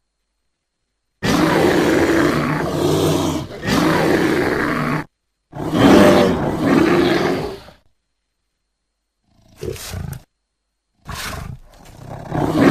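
Loud snoring: a series of long, noisy snores, the first two running together with a brief break, then shorter ones after gaps of silence.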